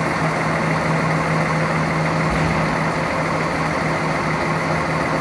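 Underfloor MTU six-cylinder diesel engine of a Class 170 Turbostar train running steadily at idle, a constant hum with no change in speed.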